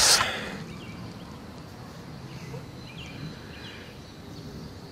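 A brief loud rustling burst right at the start, then a faint steady background with a few faint, short bird chirps spaced out over the next few seconds.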